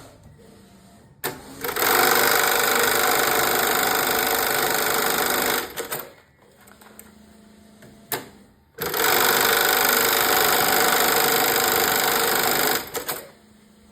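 Automatic cap eyelet machine stitching the air-hole eyelets on a cap, running in two cycles of about four seconds each. Each cycle starts just after a sharp click.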